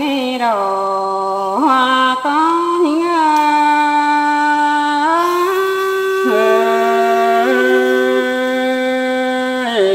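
Unaccompanied Thái folk courtship singing (hát giao duyên): a single voice holding long, drawn-out notes, sliding and wavering between pitches with small ornamental turns.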